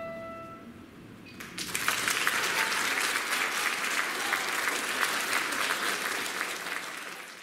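The last notes of a mallet percussion instrument and piano ring out and fade. About a second and a half in, an audience begins applauding steadily.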